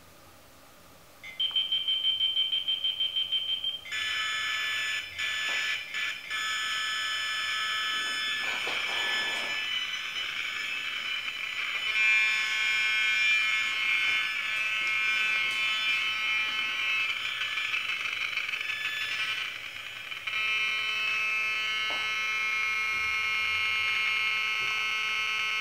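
BugHunter BH-02 Rapid bug detector sounding its audio alarm: a fast-pulsing high beep starting about a second in, then from about four seconds a loud, harsh electronic buzz with many overtones that holds on, briefly dipping and changing its tone near the end. It is the detector's response to a strong radio signal while it is swept around the room.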